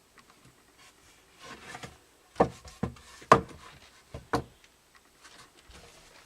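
A few sharp, unevenly spaced knocks on wood, heard inside a small room: work on a new roof rafter.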